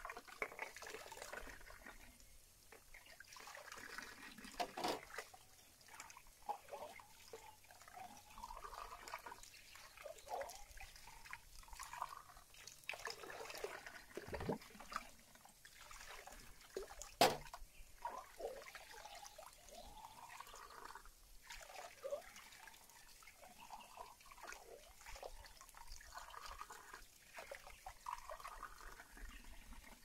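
Water from a garden tap splashing and trickling as plates are washed and rinsed by hand, with small clinks of dishes against each other. A single sharp knock stands out about 17 seconds in.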